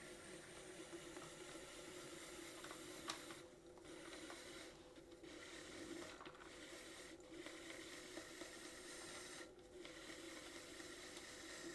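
Faint scraping hiss of a loop trimming tool shaving leather-hard clay off a piece turning on a potter's wheel, over the wheel motor's steady low hum. The scraping breaks off briefly several times.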